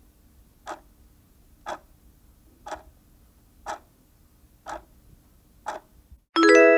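Clock-tick countdown sound effect: one tick each second, seven in all, timing the answer. About six seconds in a bright chime rings and dies away as the countdown ends; it is the loudest sound.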